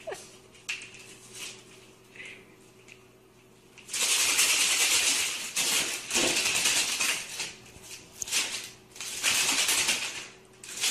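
A few light clicks, then from about four seconds in, loud rustling and clattering in uneven spells as a cat scrambles over papers and clothes on a desk.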